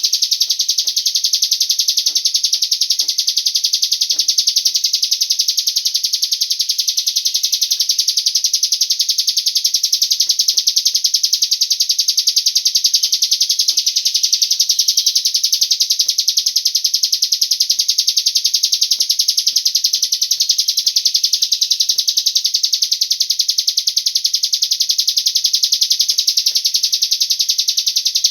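A cigun songbird's song: a continuous, rapid, high-pitched trilling chatter that never pauses, played as a lure to draw other cigun into singing.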